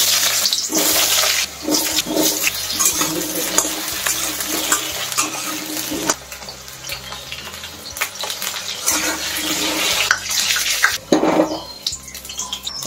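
Potato chunks sizzling loudly as they fry in hot oil in a metal kadai, starting suddenly as they go into the oil. A metal spatula clicks and scrapes against the pan as it turns them.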